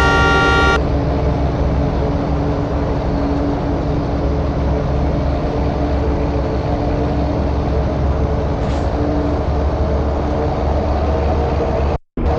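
A lorry's multi-tone telolet horn plays its last chord and cuts off under a second in; after that, the lorry's engine runs steadily under even road and wind noise.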